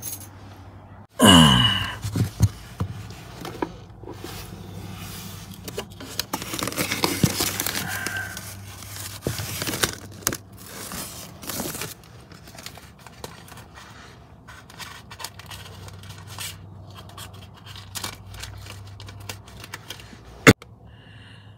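Clear plastic rustling and crinkling, with scrapes and small clicks, as hands work around the truck's fuse panel, over a faint steady hum. A loud, brief falling sweep comes about a second in, and a sharp click comes near the end.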